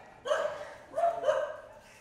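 A dog barking three times in quick succession, short sharp barks with the last two close together.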